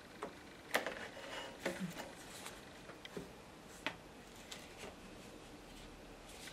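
A few scattered faint clicks and light knocks from a card picture mount being handled and shifted against a watercolour painting on a wooden easel.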